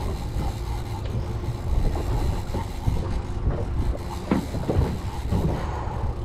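Low, uneven rumble of wind on the microphone aboard a boat at sea, with scattered short knocks.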